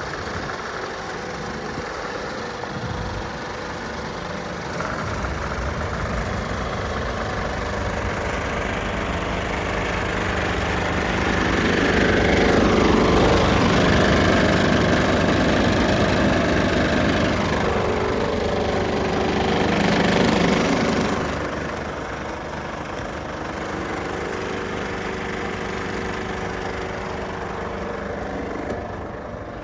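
Scania P450 truck's 13-litre inline-six diesel idling steadily. It is louder for about ten seconds in the middle, heard from beneath the chassis, then quieter again.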